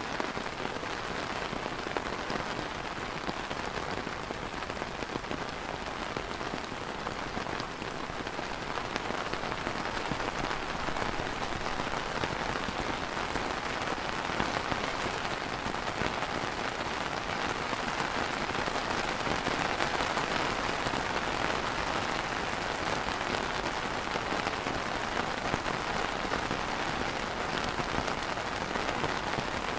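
Steady light rain falling on a clear plastic umbrella, a dense, even patter of drops.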